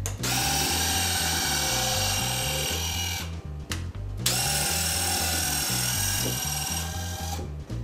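Several high-speed micro linear actuators running together: a steady high-pitched whine of the small electric motors and gearboxes as the rods extend for about three seconds. It stops for about a second, then comes back for another three seconds as the rods retract. Background music plays underneath.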